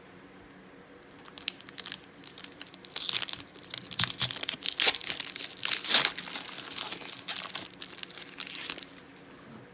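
Foil wrapper of a trading card pack crinkling as it is torn open, a run of dense crackles starting about a second in and stopping near the end.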